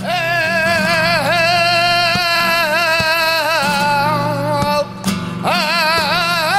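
A flamenco singer's opening lament (salida del cante) por caracoles, long wavering 'ay' and 'i' sounds sung over acoustic flamenco guitar. One long held phrase breaks off about five seconds in, leaving the guitar briefly, and a new phrase starts.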